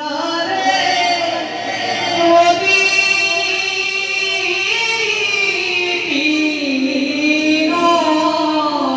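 A single voice singing a slow devotional Bhaona song, with long held notes that glide slowly up and down.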